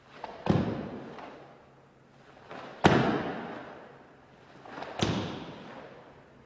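Three sharp thuds about two seconds apart: bare feet stamping on a wooden dojo floor during a karate kata, each one echoing in the hall.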